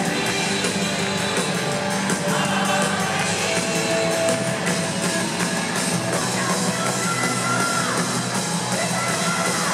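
Live rock band playing with a lead vocal, heard from within the audience.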